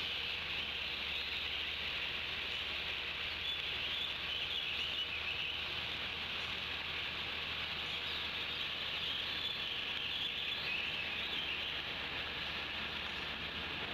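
Steady hiss of rain falling on the nest tree and foliage, with a few faint bird chirps about a third of the way in and again near the end.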